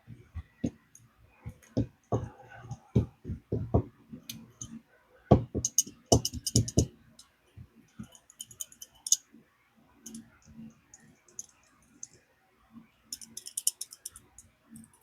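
Metal folding hex key set being worked back and forth on its pivot to work in freshly applied 3-in-1 oil: dull knocks and handling thumps, then short runs of rapid metallic clicking, three times.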